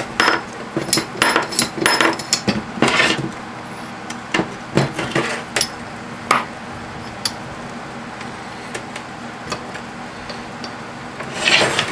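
Metal clanks and knocks as a small motor from a microwave is set into a bench vise and clamped, busiest in the first few seconds, then scattered light ticks.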